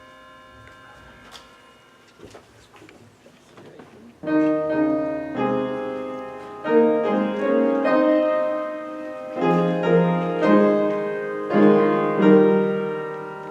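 Slow piano music of held chords. It starts about four seconds in, after a few quiet seconds.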